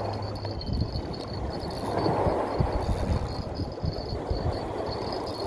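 Strong wind buffeting the microphone, a rough rumble that swells and drops in gusts, with a faint steady high tone above it.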